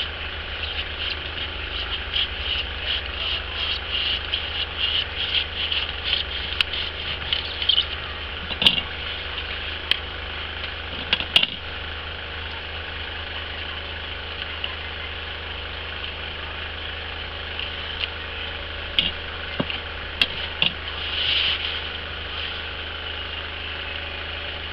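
Craft knife cutting through EVA foam around a styrofoam ball: rapid little scratching strokes for the first several seconds, then a few scattered clicks and knocks as the pieces are handled. A steady low hum runs underneath.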